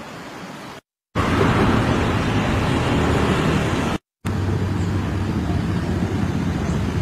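Steady outdoor noise, a low rumble under a hiss, in three pieces broken by short silences about one and four seconds in; the middle piece is the loudest.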